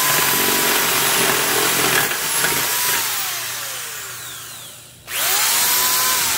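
Ryobi D43 corded drill with a planetary gearbox running at full speed while a spade bit bores into wood. It is released about three seconds in and its motor whine falls away as it spins down. A couple of seconds later it is triggered again with no load, whining quickly back up to speed.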